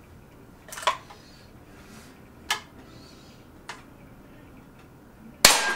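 Air Arms FTP 900 .177 PCP air rifle firing once near the end: a single sharp crack followed by a brief ringing tone. Before it, a few faint clicks.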